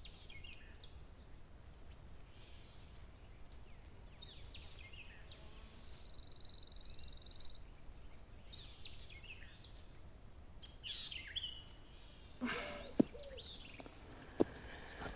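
Songbirds chirping and calling over a low outdoor hum, with one buzzy trill about halfway. Near the end, two sharp knocks of a hatchet striking wood, about a second and a half apart.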